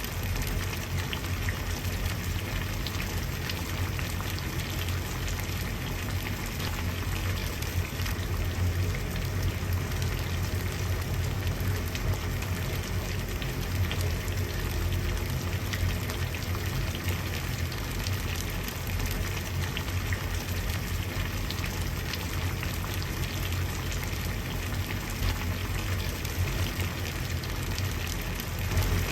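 Water at a rolling boil: a steady bubbling with many small pops over a low rumble, even and unchanging.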